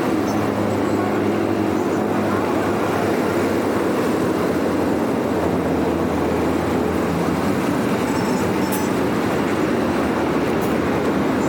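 Steady, loud rush of water flowing through a dam drainage after heavy rain.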